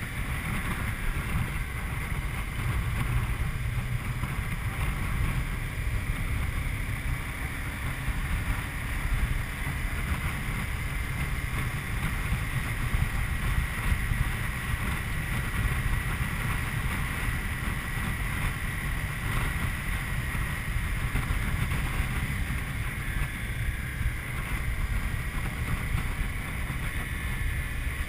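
Steady wind rumble on the camera microphone of a Honda CBR250R motorcycle riding along at a steady speed, with the bike's single-cylinder engine running underneath at a steady pace.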